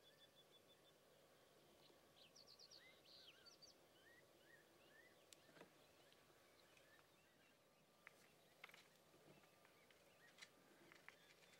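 Near silence, with faint songbird chirps and quick trills in the first half and a few soft clicks later on.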